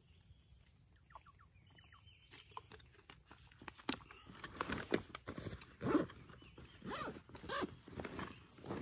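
Steady high-pitched chirring of crickets or other insects, with scattered clicks and knocks in the second half.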